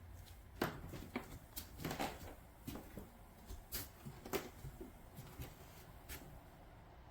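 Light, irregular clicks and knocks of handling, about a dozen in six seconds, over a faint low steady hum.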